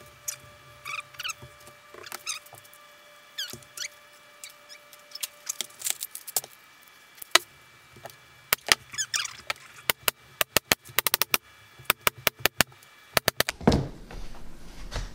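Pneumatic crown stapler shooting 3/4-inch staples through carpet into a plywood panel: a long series of sharp shots, some in quick runs, after a few seconds of light squeaks and rubbing as the carpet is smoothed by hand. A thump near the end.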